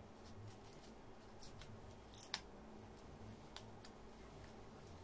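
Faint crackling and a few scattered ticks of protective paper film being peeled off an amplifier's front panel.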